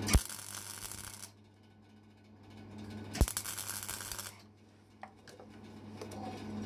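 Electric welding torch making two short tack welds on a metal casting: each starts with a sharp crack as the arc strikes, then crackles and hisses for about a second before cutting off, over a steady electrical hum. A faint click near the end.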